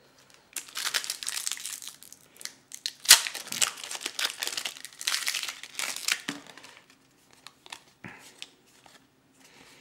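Foil trading-card booster pack wrapper crinkling and tearing as it is ripped open by hand, with one sharp snap about three seconds in. After about seven seconds only faint clicks of the cards being handled remain.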